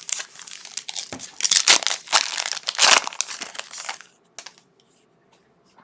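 A trading card pack's wrapper crinkling and tearing as it is opened by hand, for about four seconds, then it goes quiet.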